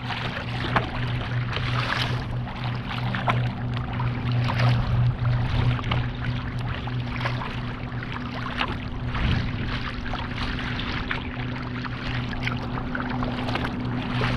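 Choppy lake water splashing and slapping against a kayak's bow and hull as it cuts through small waves, in irregular splashes over a steady low hum.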